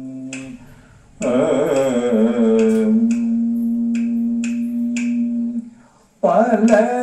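A man singing Kathakali music in Malayalam, heard through a television speaker. A held note breaks off about half a second in; the next phrase opens with wavering ornamented slides and settles into a long held note, and a new phrase starts near the end. Sharp clicks keep time under the voice.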